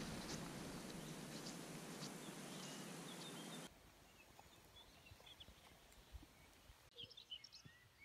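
Faint woodland ambience: scattered songbird chirps over a steady hiss that cuts off suddenly after about three and a half seconds, leaving only quieter bird calls.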